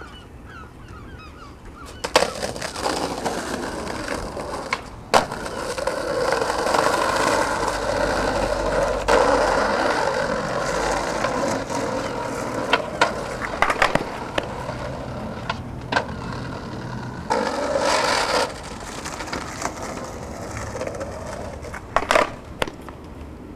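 Skateboard wheels rolling over a paved path, broken by sharp clacks of the board popping and landing. Near the end comes a quick cluster of knocks as the skater falls and the board clatters away.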